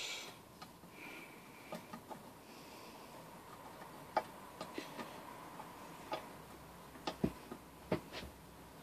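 Light, irregular clicks and taps of tools and small metal engine parts being handled during reassembly of a small 3 hp engine, about a dozen over the stretch, a little louder near the end.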